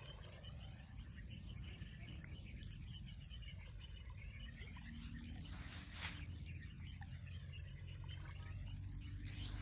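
Faint wetland outdoor ambience: small animals chirping over a steady low wind rumble, with one brief sharp click about six seconds in.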